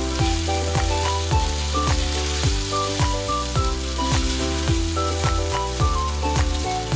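Marinated chicken thigh pieces sizzling as they fry in an enamelled cast-iron pan, stirred with a wooden spatula. Background music with a bass line and a steady beat of about two hits a second plays over it.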